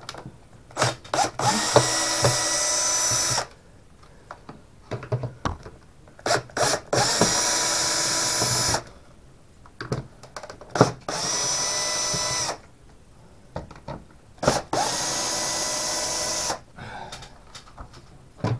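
Compact DeWalt cordless drill backing out the four old, partly stripped screws of a bathroom extractor fan housing: four steady whirring runs of about one and a half to two seconds each, with short blips and clicks as the bit is seated between them.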